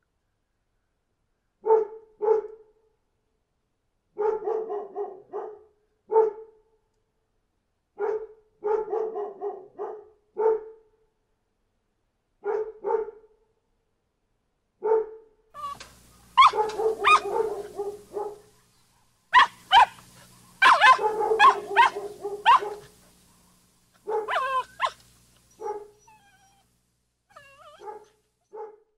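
Dogs barking in short bursts. The barks come in small, spaced groups at first. From about halfway they turn into a denser run of overlapping barks at several pitches, then thin out to a few short yips near the end.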